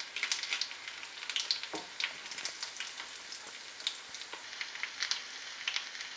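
Chicken kobiraji cutlet frying in hot oil, its lacy egg covering sizzling with frequent sharp crackles and pops over a steady hiss.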